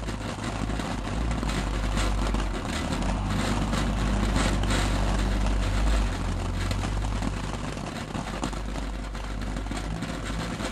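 Ground fountain firework spraying sparks: a steady hiss with many scattered sharp crackles, over a low rumble.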